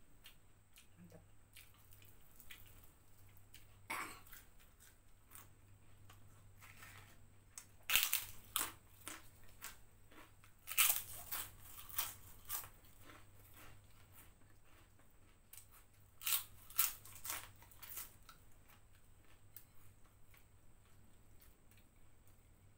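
Close-miked biting and chewing of crispy fried snacks, shrimp crackers and corn fritters, with several bursts of loud crunching separated by quieter chewing.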